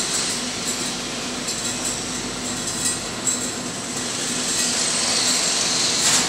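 Steel coil slitting line running: a steady mechanical din with a low hum and a few light metallic clinks.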